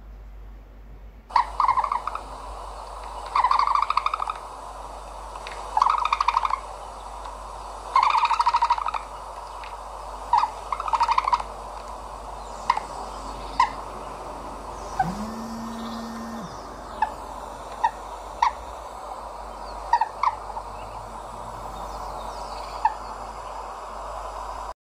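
Bird calls: about five short trilled calls, each half a second to a second long, then single sharp chirps a second or two apart. A brief low steady hum comes in about fifteen seconds in.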